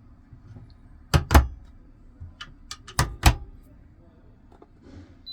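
Two pairs of loud thumps, the second pair about two seconds after the first, with a few lighter clicks between them.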